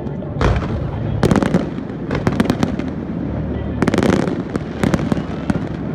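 Aerial fireworks going off: a deep boom about half a second in, followed by bursts of sharp crackling pops, densest about a second in and again about four seconds in.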